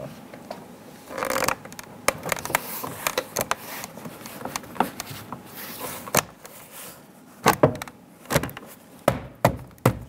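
Hands pressing a plastic door trim panel onto a 2004 Dodge Ram 1500's rear door: scattered knocks, taps and clicks of the panel and its retaining clips seating, with a run of louder knocks in the last few seconds.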